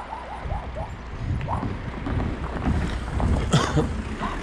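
Wind buffeting the microphone in uneven low rumbles. There are a few short high calls near the start and a sharp knock about three and a half seconds in.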